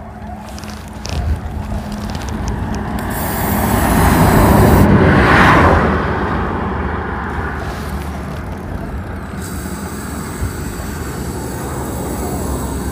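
A road vehicle passes close by, swelling to its loudest about five seconds in and then fading, over a steady low traffic hum. Near the end comes the hiss of an aerosol chain lubricant being sprayed onto a motorcycle's drive chain.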